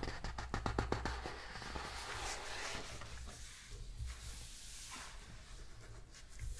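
Pages of a large hardcover coffee-table book being turned by hand. A quick run of crackling paper comes in the first second or so, then softer rustling as the hand smooths the page flat.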